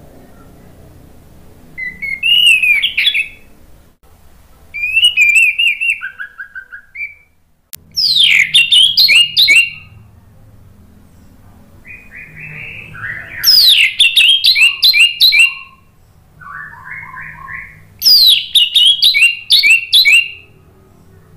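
Orange-headed thrush singing: about six loud phrases of quick falling whistles and rapid repeated notes, with pauses of a second or two between them.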